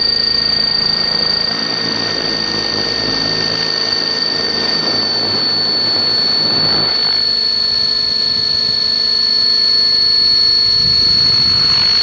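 Align T-Rex 600 radio-controlled helicopter heard from its own onboard camera rig: a steady high-pitched motor whine over the whoosh of the rotors, the noise easing a little about seven seconds in.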